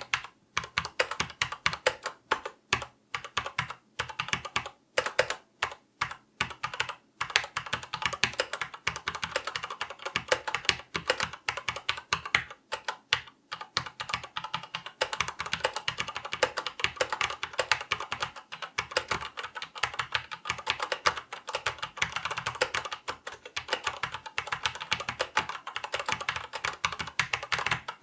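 Typing on a Corsair K63 tenkeyless mechanical keyboard with linear Cherry MX Red switches, a rapid clattering of keystrokes. The strokes are separate for the first several seconds, then run into fast, near-continuous typing and key-mashing for the rest.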